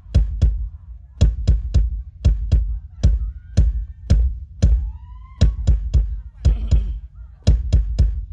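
Drum kit on a live band stage played in quick, irregular sharp hits with a heavy low thump, over a steady low hum. A couple of brief gliding high tones come a little past the middle.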